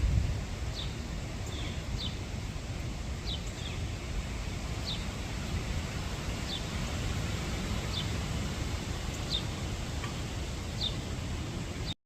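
Strong wind buffeting the microphone as a steady low rumble, with short high chirps from a bird repeating about every second and a half.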